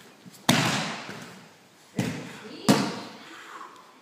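Aikido breakfalls on a tatami mat: three sharp slaps of a body and hands hitting the mat. The first, about half a second in, is the loudest, and each one echoes briefly.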